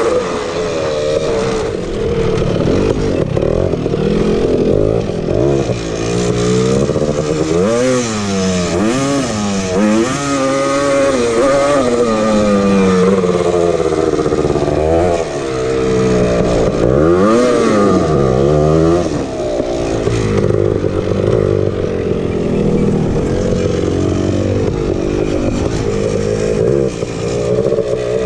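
Single-cylinder two-stroke engine of a Honda TRX250R ATV, running under load with the revs rising and falling again and again as the throttle is worked.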